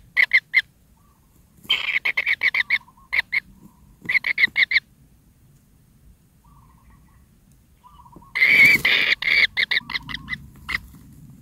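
Kingfisher nestlings calling in quick runs of harsh, rapidly repeated notes, several short runs, a pause of a few seconds, then the loudest run near the end, which opens with a brief rustle. Typical nestling begging calls.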